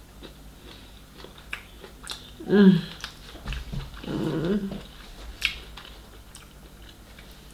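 A small dog vocalising twice: a short whine about two and a half seconds in, and a longer one about four seconds in. Between them come scattered sharp clicks of chewing and seafood shells being handled.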